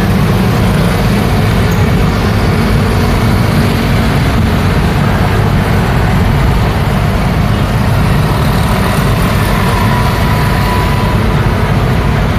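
Steady road traffic at close range: cars and motor scooters driving past, with their engines and tyres on asphalt blending into a continuous, even noise.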